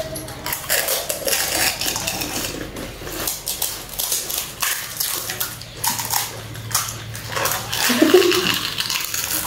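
Crisp pani puri shells cracking again and again as fingers break them open and mouths crunch them, with light clinks against steel plates. A short voice is heard about eight seconds in.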